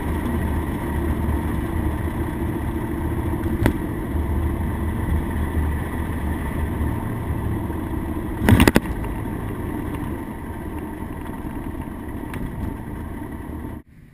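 Engine and road noise inside the cab of an old pickup truck on the move: a steady low rumble, with a short knock near four seconds in and a loud clatter about eight and a half seconds in. The noise drops off suddenly near the end.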